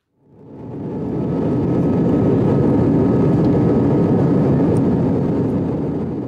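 Airliner jet engines running: a loud, steady rumble with a faint high whine, building up over the first two seconds.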